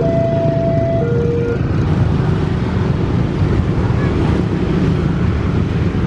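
Passenger train coaches rolling away along the track, a steady loud rumble of wheels on rails. Over it a two-tone level-crossing warning alarm alternates a higher and a lower note about once a second, stopping about one and a half seconds in.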